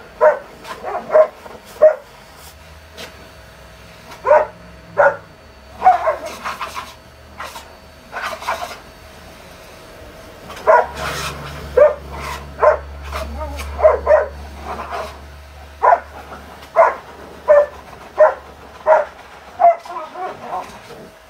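Large long-haired dog barking over and over, in short sharp barks that come singly and in quick runs of two or three, with brief pauses between.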